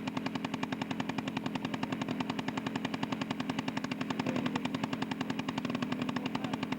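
Model aircraft engine running steadily at a low idle, an even pulse of about ten beats a second.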